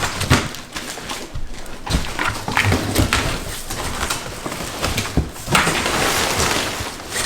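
A cardboard box and its packaging being handled and opened: scattered knocks and thumps, with a longer stretch of rustling about two-thirds of the way through.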